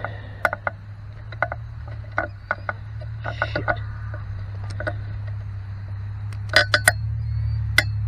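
Bailey V5 four-stroke paramotor engine running with a steady low hum that grows a little louder toward the end, overlaid with scattered sharp clicks and knocks, a quick cluster of them near the end.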